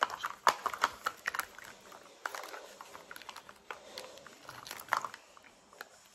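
Irregular crinkling and sharp clicking of plastic as a Zuru 5 Surprise Mini Brands capsule and its wrapping are peeled open by hand.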